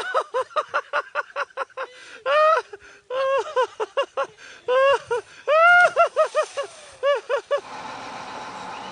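High-pitched, breathless laughter in rapid bursts of about four or five a second, right after a mishap on the water. About seven and a half seconds in it stops and a steady rushing noise carries on.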